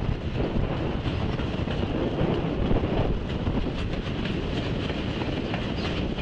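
Autorack freight cars rolling past: a steady rumble of steel wheels on rail, with repeated clicks as the wheels pass over rail joints.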